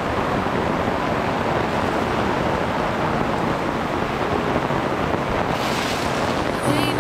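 Heavy summer rain shower pouring down steadily, heard from under a camping tarp as it rains onto the tarp and the gravel around it.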